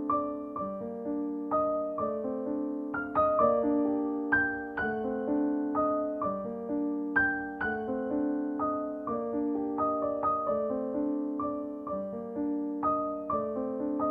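Background piano music: soft keyboard notes played at an even pace, each note struck and ringing out.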